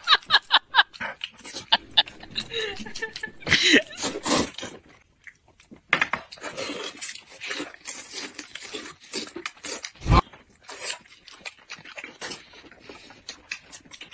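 People eating noodles close to the microphone: slurping and chewing with scattered short clicks, and one soft thump about ten seconds in.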